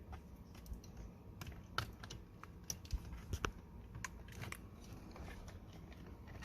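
Irregular light clicks and taps of plastic wiring connectors being handled and plugged in for the steering wheel controls.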